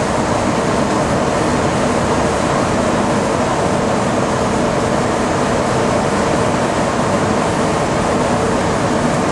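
Steady rush of cockpit noise inside an Embraer E175 airliner on final approach: airflow and engine noise, with a faint low hum underneath.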